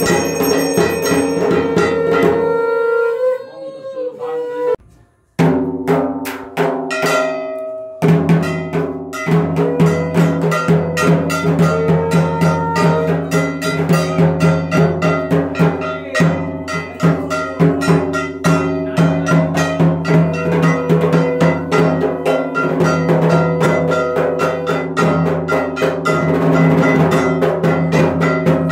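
Music with a steady percussion beat under sustained instrument tones; it drops away briefly about four to five seconds in, then starts again.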